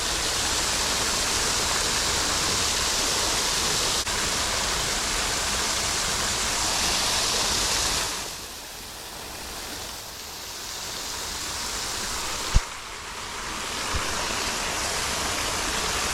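Steady rushing of a small waterfall. About halfway through it falls quieter for several seconds, then comes back up, with one sharp knock late on.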